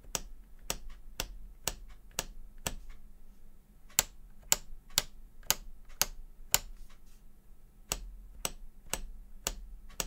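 Topre capacitive keyswitches pressed and released one key at a time, about two presses a second, switching between a silenced HHKB Pro 2 Type-S and an unsilenced Realforce. The louder, sharper clacks in the middle stretch fit the unsilenced slider hitting the top on the upstroke, which is pretty loud.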